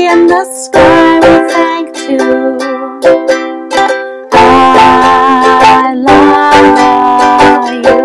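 Fender ukulele strummed in chords, with a woman singing long held notes with vibrato over it. Fresh strong strums come about a second in and again just after the four-second mark.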